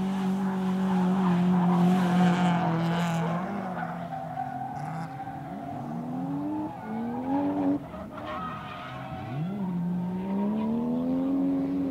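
Drift car engines revving hard with tyre squeal. The engine note holds steady for the first few seconds, then drops and climbs again in several rising sweeps, the last climbing steadily toward the end.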